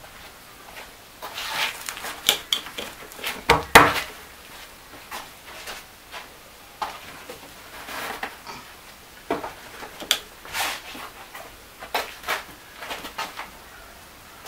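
Irregular knocks, bumps and scrapes, loudest about three to four seconds in, from a freshly cast concrete oven dome and its board being handled and adjusted.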